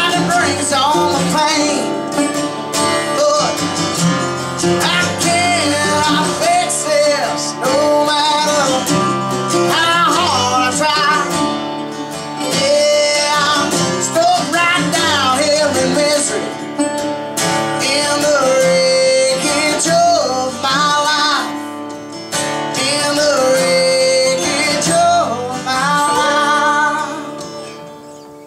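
Live acoustic country-rock song: a man singing lead over strummed acoustic guitars, ending with a last chord that fades out near the end.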